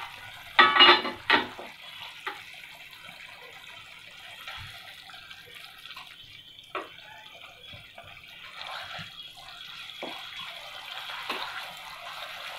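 Tomato-and-spice masala sizzling and bubbling in a non-stick kadai on a gas flame, with scattered scrapes and taps from a spatula stirring it; the sizzle grows a little louder near the end. A few sharp clatters about a second in.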